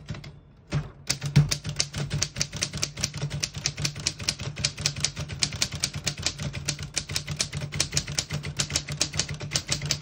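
1933 Corona 4-bank portable typewriter being typed on: a fast, even run of key strikes starting about a second in, with no pauses from skipping or sticking keys.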